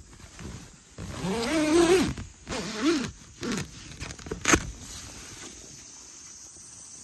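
Tent door zipper being pulled open in three quick strokes, each a rasp whose pitch rises and falls with the pulling speed, followed by a sharp click about four and a half seconds in.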